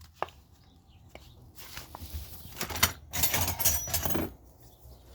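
Rummaging through a box of old hand tools: a few light clicks, then a couple of seconds of rattling and clinking metal with one sharp clack near the middle.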